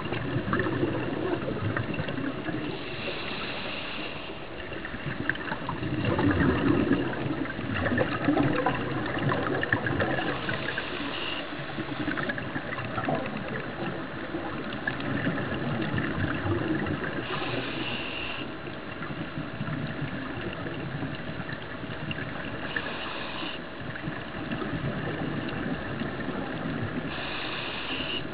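Scuba regulator breathing heard underwater: a short hiss of inhalation about every six to seven seconds, alternating with gurgling rushes of exhaled bubbles. A faint steady hum runs underneath.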